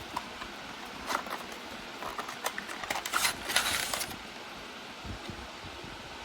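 Small handling noises of PC parts and packaging: a few light clicks, then a brief rustle from about two and a half to four seconds in, and a couple of soft knocks near the end.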